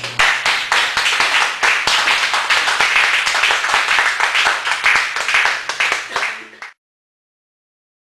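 Audience clapping and applauding at the end of a poetry reading, a dense patter of many hands that cuts off abruptly near the end.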